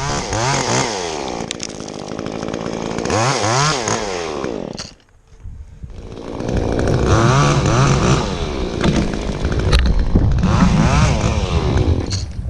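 Chainsaw engine revving up and down in repeated throttle bursts. It cuts out briefly about five seconds in, then runs again at high revs.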